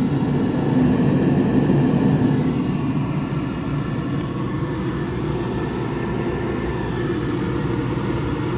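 Oil furnace burner firing: a steady low roar of flame and burner blower, a little louder for a second or two near the start, running evenly without surging.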